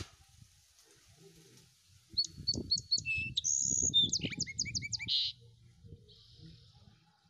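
A bird sings one phrase of quick, repeated high chirps and trills, about three seconds long, starting about two seconds in.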